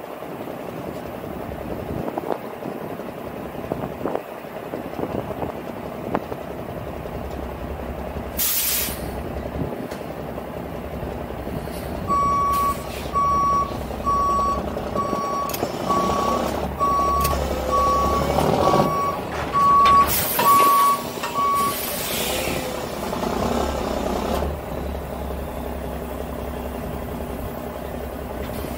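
A backup alarm beeping about once a second, about eleven beeps in all, starting near the middle, over the steady low running of a heavy truck's diesel engine. There are short air-brake hisses before the beeping starts and again near its end.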